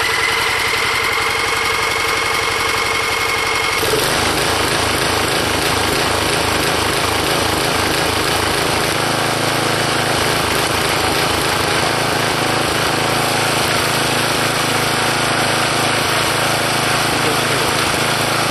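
Old tiller's small engine, converted to run on propane, cranking on its electric starter with a rising then steady whine. About four seconds in the engine catches and runs steadily, and its note changes about nine seconds in as the propane valve is adjusted.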